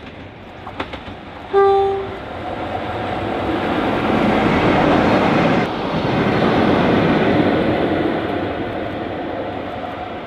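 Class 47 diesel locomotive running light engine: a short single-note horn blast about a second and a half in, the loudest sound, then its Sulzer diesel engine and wheels on the rails growing louder as it passes, with a sudden break just past halfway where the recording cuts, and easing off near the end.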